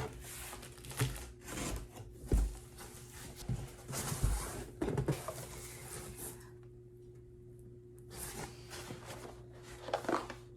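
Large cardboard shipping box being opened and handled: irregular knocks, scrapes and rustling of cardboard and packing, thinning out after about six seconds to a faint steady hum with one more brief rustle near the end.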